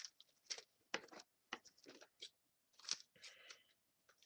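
Bubble wrap and plastic packaging crinkling and crackling as it is handled and unwrapped, in faint, scattered, irregular bursts.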